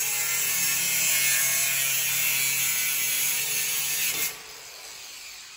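A handheld cutoff wheel cutting into metal on a car's underside: a steady, high grinding over a low motor hum. About four seconds in it comes off the metal and runs on more quietly.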